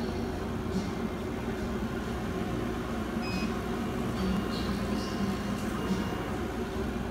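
Laser cutter running with a steady mechanical hum. A few short high whines come near the middle as the laser head moves across the bed.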